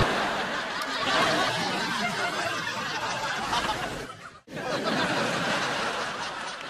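People snickering and laughing, with background chatter; the sound drops out for a moment a little over four seconds in.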